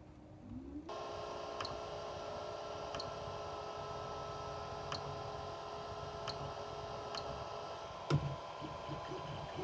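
A 3D printer's fans spin up with a short rising whine within the first second and then run with a steady hum, while faint clicks come every second or two as its rotary control knob is turned through the menu. About eight seconds in, a sharp click is followed by a pulsing stepper-motor whir as the axes start moving to home.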